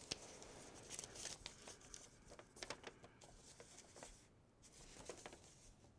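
Faint rustling and crinkling of a folded paper snowflake being unfolded and refolded by hand, with scattered small crackles.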